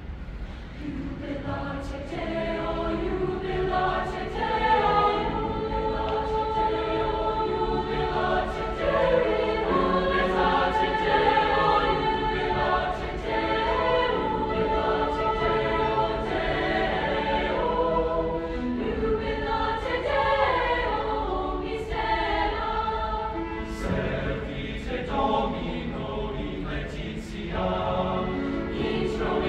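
Large mixed-voice high school choir of women and men singing in parts. It swells in from quiet over the first couple of seconds, then holds full and steady.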